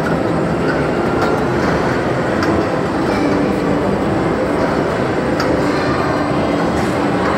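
Carousel running: a steady rumble from the turning platform and its drive, with faint clicks now and then.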